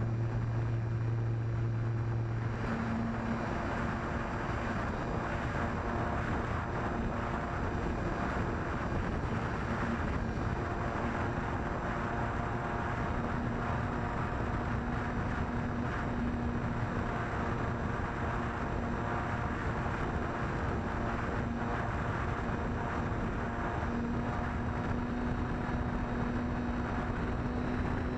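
Electric RC plane's 2212 1400KV brushless motor and 8×6 propeller running steadily at a high hum, with wind noise on the microphone. The pitch steps up a little about two to three seconds in.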